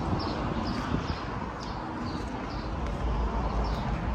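Footsteps on a concrete floor while walking, with a short high chirp repeating about twice a second.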